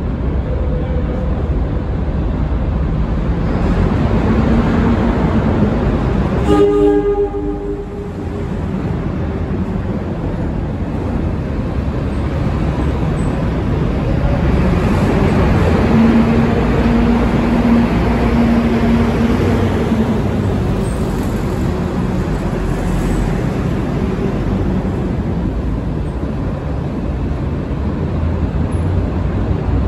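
Subway pump train (converted R17/R21/R22 reach cars with an R65 pump car) rumbling through an underground station on steel wheels and rails. It gives one short horn blast about six and a half seconds in.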